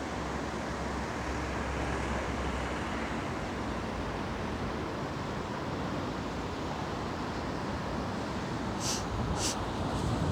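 Steady outdoor wind noise, an even rumble and hiss, with two brief high clicks about nine seconds in.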